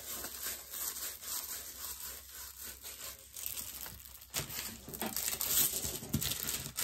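Crinkly packaging of a diamond painting kit rustling and crinkling as it is handled, in quick irregular rustles that grow louder about four and a half seconds in.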